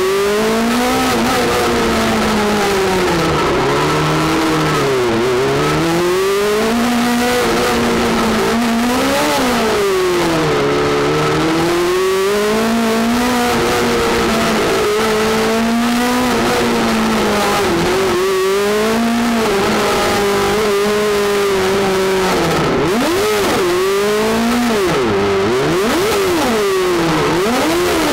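Honda 600 motorcycle engine of a tubular-frame prototype race car, revved hard and eased off over and over, its pitch climbing and dropping every few seconds as the car is driven on dirt. Heard from inside the car's cockpit.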